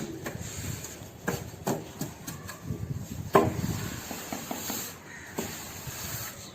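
A few sharp knocks and taps over steady background noise, the loudest a little past three seconds in.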